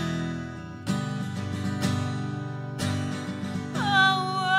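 Acoustic guitar strummed in chords about once a second during a song's instrumental gap, with a woman's singing voice coming in near the end on a long note with vibrato.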